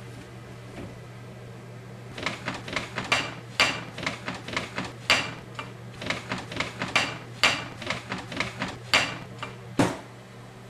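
Hand-drummed rhythm of quick, uneven taps and knocks on bottles and containers inside an open refrigerator, starting about two seconds in and ending with a heavier knock near the end, over a steady low hum.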